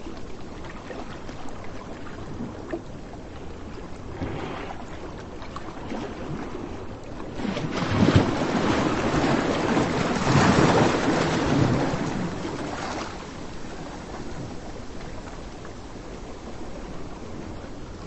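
Surf and wind on a sandy beach: a steady wash of noise that swells louder for about five seconds in the middle, as of a wave breaking and running up, then settles back.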